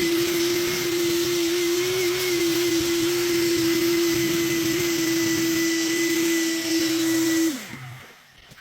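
Vacuum cleaner motor running with a steady high whine and rushing air. It is switched off about seven and a half seconds in, and its pitch drops as it winds down.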